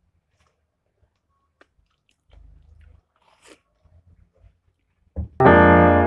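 Faint crunching and chewing of fried toast being eaten, a few soft bites in near-quiet. About five seconds in, loud background music cuts in abruptly.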